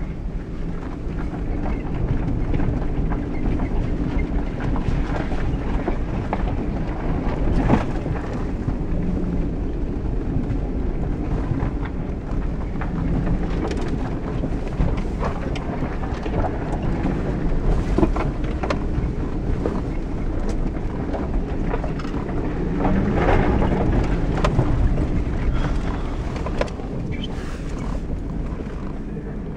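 Jeep Grand Cherokee WJ heard from inside the cabin while driving a rough dirt off-road trail: a steady low engine and road rumble, with scattered knocks and clunks from the body and suspension over bumps.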